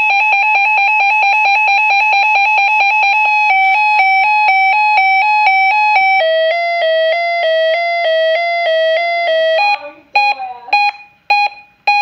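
Reecom R-1630D weather alert radio sounding its loud electronic siren alert: a rapid pulsing tone for about three seconds, then a two-tone hi-lo warble that shifts lower about six seconds in. The siren cuts off near ten seconds and is followed by a few short beeps.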